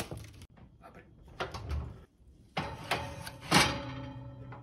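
Knocks and clatter of a round cake pan being set on an oven's wire rack, with the sharpest knock about three and a half seconds in. A faint steady hum follows it.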